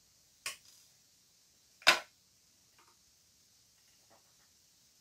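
Scissors and small craft pieces handled on a plastic cutting mat: two sharp clicks about a second and a half apart, the second louder, then a few faint light taps.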